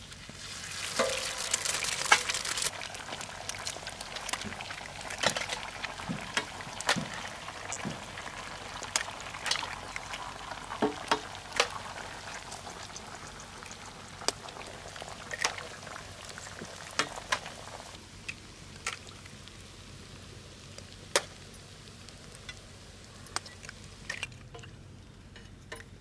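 Eggs frying in hot oil on a large pan among fried Manila tamarind, onions and green chillies. The sizzle swells loudest about a second in as eggs hit the pan, then settles into a steady sizzle, with sharp taps of a knife cracking eggshells throughout.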